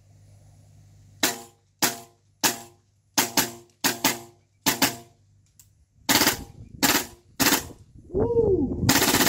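Tokyo Marui MTR16 gas-blowback airsoft rifle firing semi-automatic: a string of about a dozen sharp shots, roughly two a second, with a short pause midway. Near the end comes a longer, louder rush of noise.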